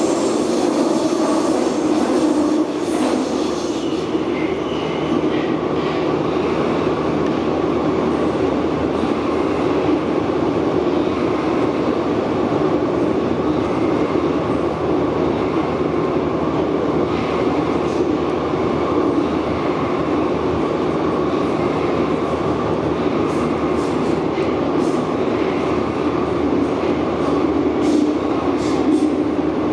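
AS-02 metro train running at speed through a tunnel, heard from inside the car: a steady rolling noise of wheels on rail, with scattered faint ticks and squeaks in the second half.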